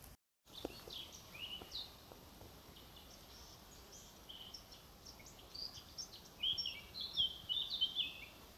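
Small songbird chirping and singing: short, high notes, scattered at first and coming thick and loud in the last two seconds or so, over a faint outdoor background.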